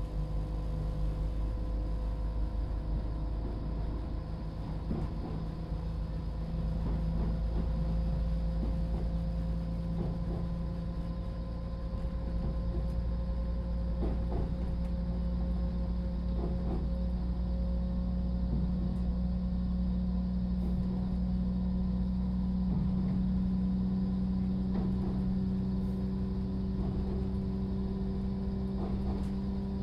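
Class 172 Turbostar diesel multiple unit under way, heard from inside the carriage: its underfloor MTU diesel engine drones steadily over the rumble of the wheels on the track. The engine note steps up about a second in and then rises slowly.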